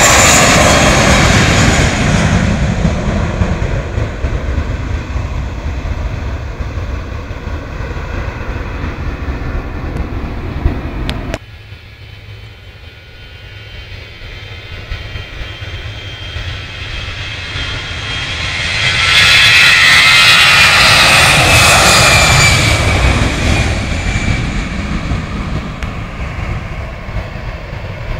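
Jet airliner engines passing low overhead, loud at first and fading with a falling whine. After an abrupt cut about eleven seconds in, a second airliner's engines build to a loud pass a few seconds later, then fade away.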